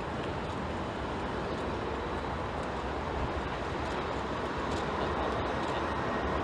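Jet engine noise from an Airbus A330-300's Rolls-Royce Trent 700 turbofans at takeoff thrust as the airliner climbs out. It is a steady, even rush that grows slowly louder.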